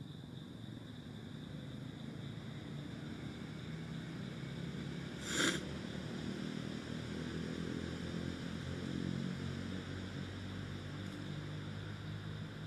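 Steady low hum with a thin, steady high whine over it, and one short, sharp sound about five and a half seconds in.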